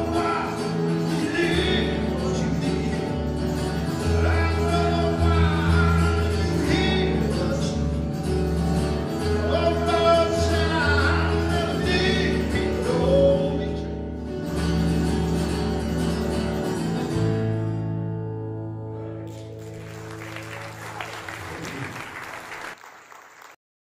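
Live song: a man singing over a strummed steel-string acoustic guitar with a second stringed instrument carrying low notes. The music ends on a held final chord about two thirds of the way in, and audience applause follows and cuts off abruptly near the end.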